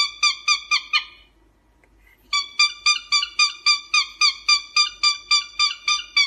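Cockatiel calling in a fast, even series of short pitched chirps, about four a second. The chirps break off for about a second and then resume.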